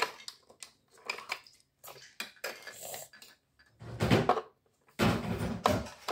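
Hard plastic clicks, knocks and scrapes as small Peppa Pig figures are pushed and turned in the seat holes of a plastic toy car. They come irregularly, with a louder stretch of knocking and handling about four to six seconds in.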